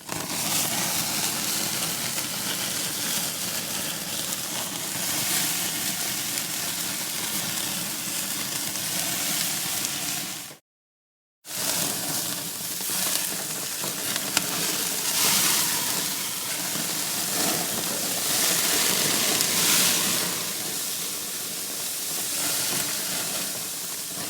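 Steak sizzling: a dense, steady sizzle with fine crackling. It stops for under a second about ten seconds in, then resumes and swells louder in the middle before easing off.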